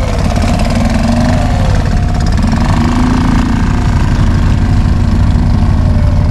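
Suzuki 2.5 hp four-stroke single-cylinder outboard motor running steadily under way, its pitch rising and falling a little.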